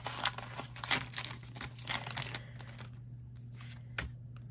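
Foil wrapper of a Pokémon card booster pack crinkling and tearing as it is opened, a quick flurry of crackles for about two seconds, then quieter handling with one sharp click near the end. A steady low hum runs underneath.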